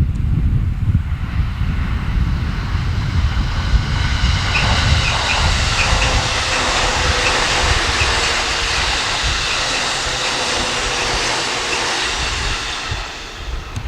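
E531 series electric train passing at speed: a loud rush of wheel-on-rail and running noise that builds about a third of the way in, holds, and dies away near the end, over a low rumble of wind on the microphone.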